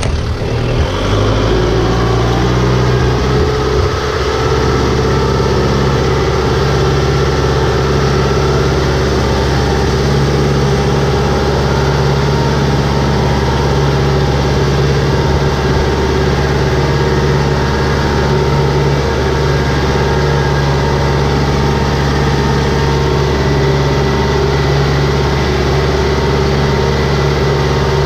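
Compact tractor engine picking up revs in the first second or two, then running steadily as the tractor drives through a flooded rice paddy, its wheels churning and splashing muddy water.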